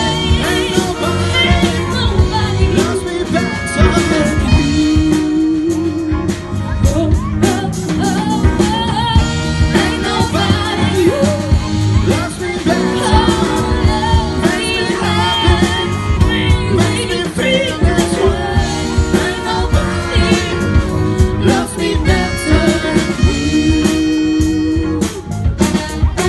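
Live band playing a rock song with drums, electric guitar, keyboard and a horn section, with singing throughout.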